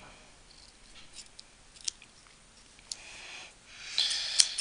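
Scissors snipping at the frayed end of nylon paracord: a few faint clicks of the blades, then a louder cut near the end.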